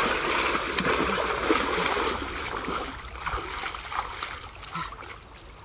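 Water splashing and churning as a person wades fast through a shallow river and thrashes at the surface with his hands, loudest in the first two seconds or so, then dying down.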